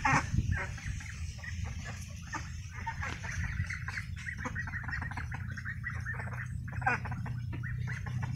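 A flock of white domestic ducks calling with many short, repeated quacks over a steady low rumble.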